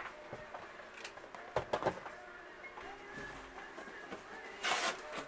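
Boxed vinyl figures and a cardboard shipping box being handled: a couple of light knocks a little over a second and a half in, and a short rustle of packaging near the end as a hand rummages in the box.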